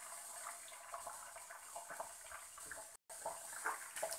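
Beaten eggs sizzling faintly in a hot oiled non-stick frying pan as they set, a soft steady hiss with small crackles. The sound cuts out for a moment about three seconds in.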